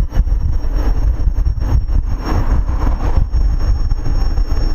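Steady low outdoor rumble of wind and road noise, fluctuating irregularly, with no single distinct event standing out.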